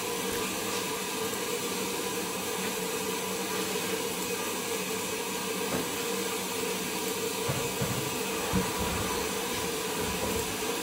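Steady background hiss with a faint hum, and a few soft low thumps a little past the middle.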